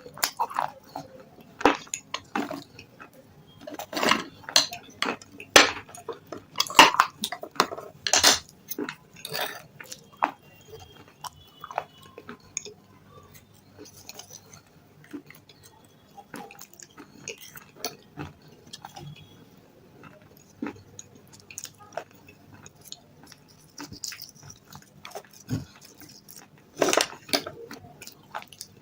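Close-miked biting and chewing of hard crunchy stone chips: irregular sharp crunches, densest in the first third and again near the end, with quieter chewing between.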